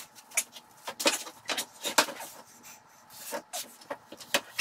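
A heavy power feeder being hauled up and carried by hand: a string of short knocks and rattles from its metal parts, mixed with strained, effortful breathing.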